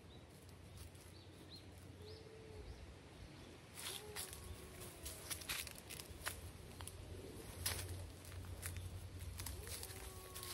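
Dry leaves and twigs crackling and snapping in a string of sharp irregular clicks as a wild boar roots and steps through leaf litter. A dove coos faintly a few times in the background.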